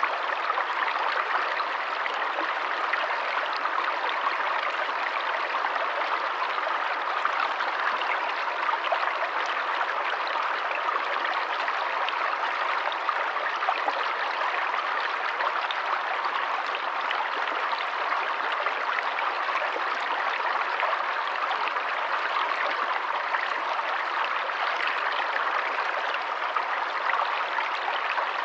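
Forest stream running water, a steady rush with many small splashes and trickles.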